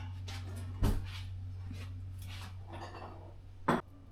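Food containers and jars being set back onto refrigerator shelves and into its bins: light clatter with two sharper knocks, about a second in and near the end, over a steady low hum.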